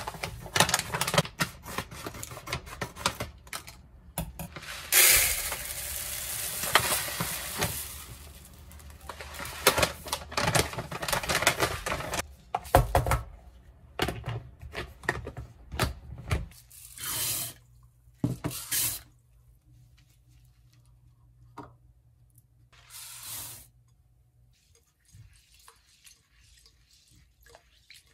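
Dry rice grains poured and scooped into a plastic storage container: a rushing pour with many small clatters against the plastic. Later, rice being rinsed and drained in a bowl at a stainless steel sink, with short spells of running water over a low steady hum.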